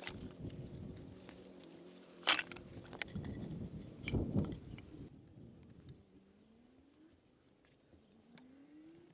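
Pieces of cut firewood knocking and clattering against each other as they are handled and set down, a loose run of woody clunks, the loudest a little over two seconds in.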